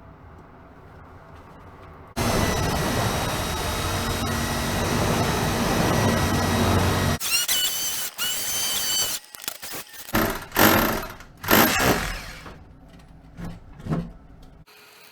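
A handheld power tool starts about two seconds in and runs steadily for about five seconds. It then gives a brief squeal with a wavering pitch, followed by several short bursts of running.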